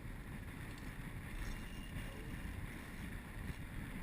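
Wind rumbling on the microphone over a steady outdoor hiss, with no distinct events.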